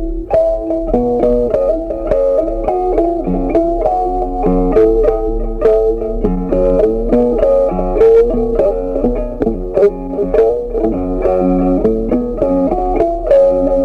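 Background music: a plucked guitar melody of quick single notes over a steady bass.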